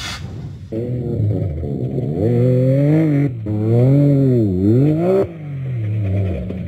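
Off-road rally buggy engine revving up and down in long rising and falling sweeps as the buggy tumbles over. The engine note cuts off abruptly about five seconds in, and a lower steady hum follows.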